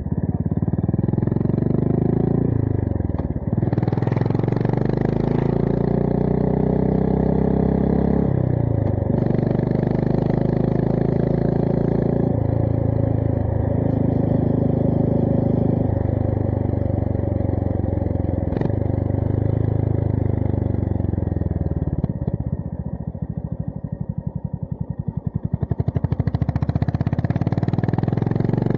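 Honda GB350S's single-cylinder engine through a MILLER Spitfire slip-on exhaust, riding. It pulls up through the gears with the pitch dropping at each upshift, about three, eight and twelve seconds in, then cruises. Around two-thirds of the way through the throttle closes and the exhaust goes quieter, then it pulls hard again near the end.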